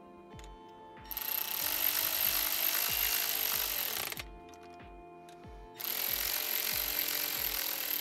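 Cordless electric ratchet running bolts down onto a short shifter's mounting plates: two runs, the first about a second in lasting about three seconds, the second starting about six seconds in. The bolts are only snugged, not torqued, to leave room to adjust the reverse lockout.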